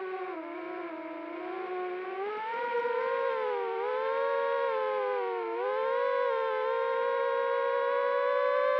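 FPV racing quadcopter's brushless motors (RCX 2205 2300KV) whining, the pitch following the throttle. It dips about half a second in and again a little past the middle, then climbs slowly.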